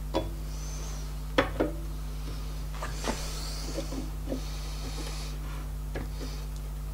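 A metal ring, squashed into an oval, being fitted and turned on a black-painted metal tube to check its shape. It gives a few sharp knocks and clicks with light scraping, the loudest knocks in the first two seconds, over a steady low hum.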